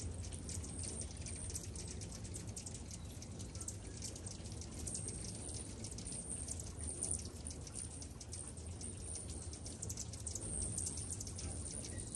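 A crowd of hummingbirds chipping and twittering: a dense stream of rapid, very high-pitched ticks and squeaks, over a steady low hum.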